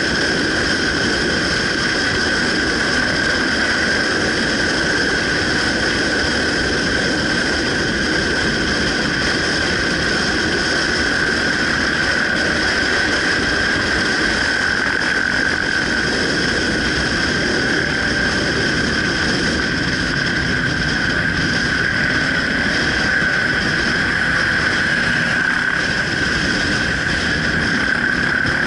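Steady wind rush and engine noise of a motorcycle riding at speed, with a constant high-pitched tone that holds unchanged throughout.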